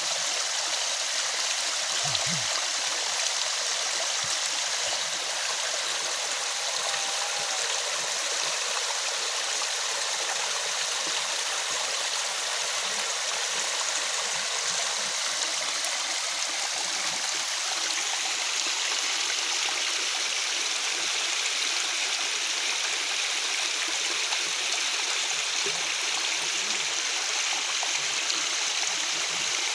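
Waterfall rushing steadily: an even, hissy wash of falling water, with its energy in the middle and upper range and little low rumble.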